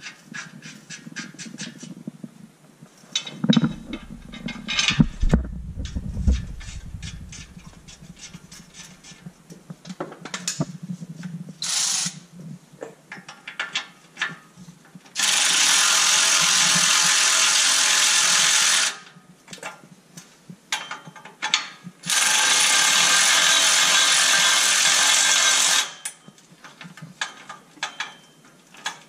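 Cordless electric ratchet running in two steady runs of about four seconds each, spinning down the nuts on an exhaust pipe flange. Before the runs come scattered metallic clicks and a few low knocks as the pipe and hardware are fitted by hand.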